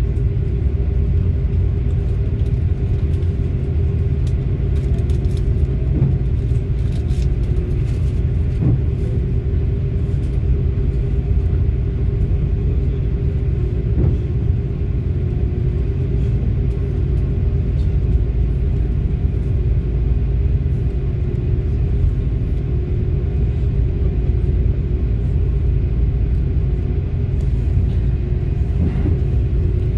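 Airbus A330-300 jet engines running, a loud steady low rumble with a constant hum.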